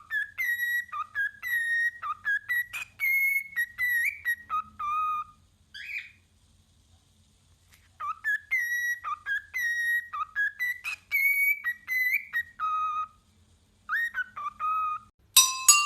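Whistling: quick runs of short, clipped notes that flick up and down in pitch. It breaks off for about two seconds midway, with one rising glide in the gap, then starts again.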